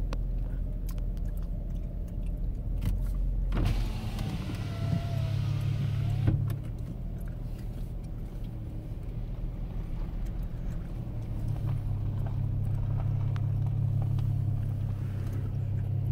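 Car engine and road noise heard from inside the cabin as the car rolls slowly, a steady low hum. About four seconds in there is a louder rustling, rubbing noise for a few seconds.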